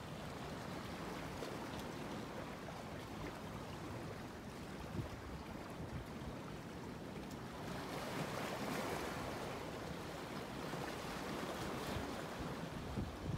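Steady wash of sea waves and wind, swelling for a few seconds about eight seconds in.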